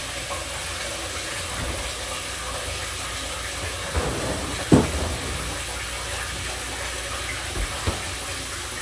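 Steady rushing hiss of water running in a kitchen, with a few knocks, the loudest one a little under five seconds in.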